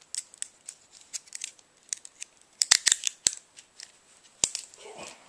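Metal handcuffs clicking as a cuff is ratcheted shut around a wrist: a run of quick, sharp metallic clicks, loudest in a cluster about three seconds in, with one more sharp click near the end.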